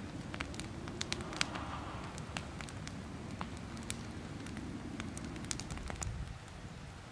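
Wood campfire crackling, with irregular sharp pops and snaps over a low steady rumble.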